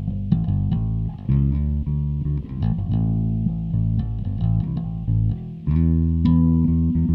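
Electric bass guitar played through a Donner Basement headphone amp on its clean channel, with effects off and the drive and tone dials at 1: a bass line of plucked low notes, some held, changing every fraction of a second to a second or so.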